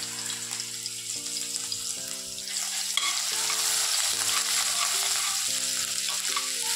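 Grated ginger and garlic sizzling in hot oil in a stainless steel kadai. From about three seconds in, a metal spoon stirs and scrapes them around the pan, and the sizzling grows louder.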